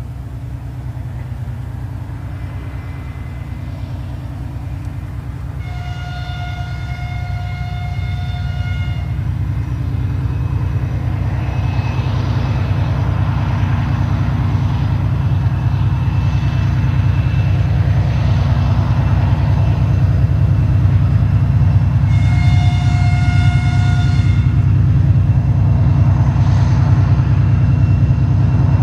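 3TE10M diesel locomotive approaching under power with a freight train, its two-stroke opposed-piston diesel engines droning low and growing steadily louder. It sounds its horn twice: a blast of about three seconds some six seconds in, and a shorter one about 22 seconds in.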